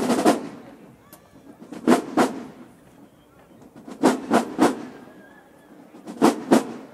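Marching band drumline playing a sparse cadence: loud clusters of two or three sharp drum hits about every two seconds, with crowd voices in the gaps.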